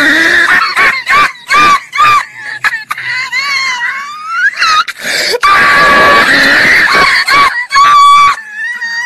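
High-pitched, wheezing, shrieking laughter: a run of quick squeals that rise and fall, then a long strained shriek, then a few more squeals near the end.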